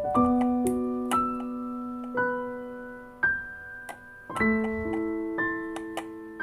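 Background music: slow solo piano, single notes and chords struck about once a second and left ringing as they fade.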